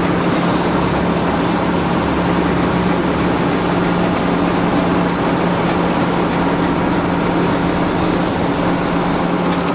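Steady, loud engine-like running noise with a constant low hum, unchanging throughout.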